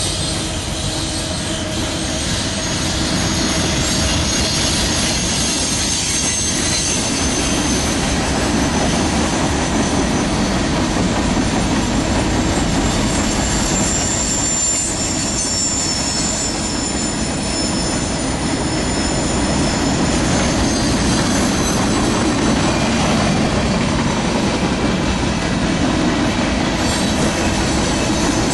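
Mixed freight train cars rolling past on the rails: a steady loud rumble of steel wheels, with a thin high-pitched squeal from the wheels coming and going over it.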